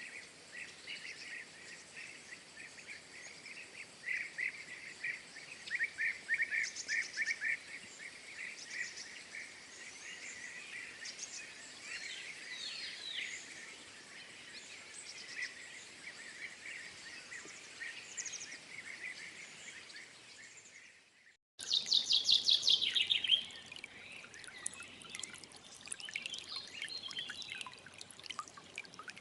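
Small birds chirping and trilling in short repeated phrases over a quiet outdoor background. About three-quarters of the way through, the sound cuts out and resumes with louder, quickly falling chirps.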